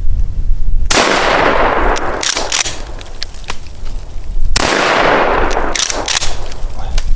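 Two blasts from a Remington 870 Wingmaster 12-gauge pump shotgun, about three and a half seconds apart, each ringing out and fading over about a second, with short metallic clacks between them as the pump action is worked.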